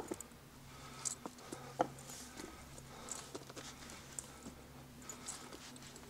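Footsteps on a stony mountain path of loose slate and dry leaves, an irregular step about once a second, over a faint steady low hum.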